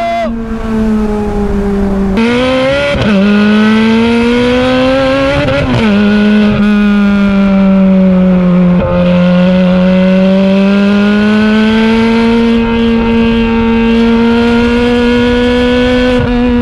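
Ferrari 430 Scuderia's V8 through a new Capristo exhaust, loud under way. Twice in the first six seconds the revs climb and then fall back sharply, then it settles into a steady drone at moderate revs.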